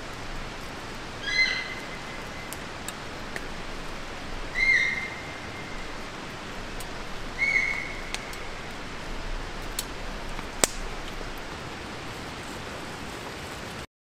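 Sika deer calling: three high, whistle-like calls about three seconds apart, each a short held note.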